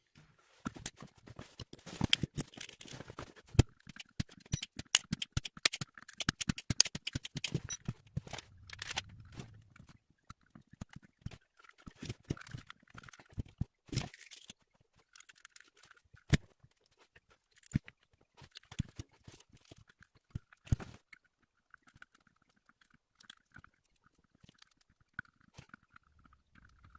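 Small hand tools clicking, tapping and scraping against a switching power supply's circuit board while the TL494CN control chip is desoldered and replaced. The clicks come thick and fast for the first ten seconds or so, then grow sparser.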